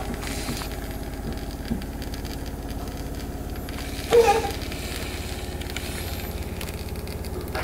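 A baby gives one short cry about four seconds in, over a steady low hum.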